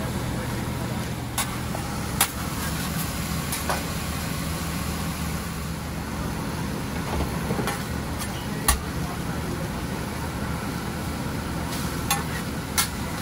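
Home fries and an omelet sizzling on a commercial flat-top griddle over a steady low hum. Scattered sharp clicks and taps of a metal spatula on the steel come through, the loudest about nine seconds in and two more near the end.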